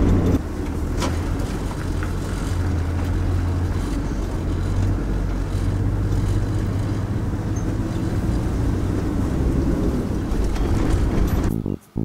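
Tow vehicle's engine and tyre noise heard from inside the cabin while driving slowly with a caravan in tow, a steady low drone. It cuts off suddenly near the end.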